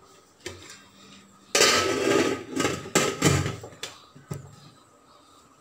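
Aluminium lid being handled and set onto a large aluminium pot: metal scraping and clanking for a couple of seconds, then a couple of sharp knocks as it seats.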